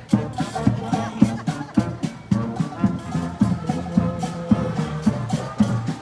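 Street band playing an upbeat second-line tune: horns holding notes over a steady drum beat.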